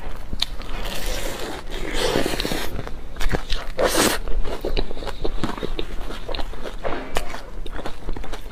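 Close-miked eating of a pastry: a steady run of wet mouth clicks and smacks from chewing, with louder biting sounds about two and four seconds in.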